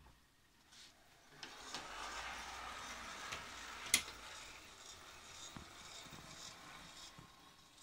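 Gauge 1 brass model of a class 70 steam tank locomotive running on its track: a faint whir of its electric motor and gearing with the wheels clicking over the rails, louder from about a second and a half in as it comes closer. A single sharp click about four seconds in.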